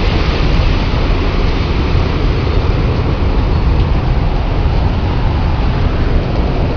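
Loud, steady roar of the tornado's winds, an even rushing noise with a heavy low rumble and no let-up.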